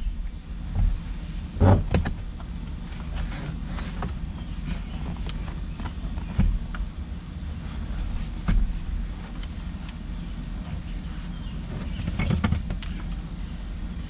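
Hand tools working on a car's seat bolts: a few separate metallic knocks and clunks spread out, over a steady low hum.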